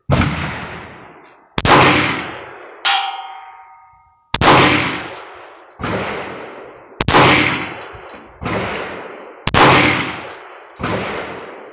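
Glock 17 9mm pistol fired in a slow string of single shots, about one every second and a half, some louder than others, each echoing and dying away under the covered firing line. Once, about three seconds in, a shot is followed by a short metallic ring.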